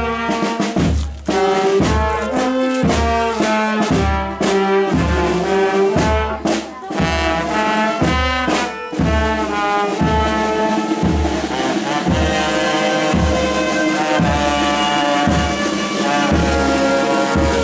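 Brass band playing a processional march, melody carried by trumpets and trombones over a steady low beat about twice a second.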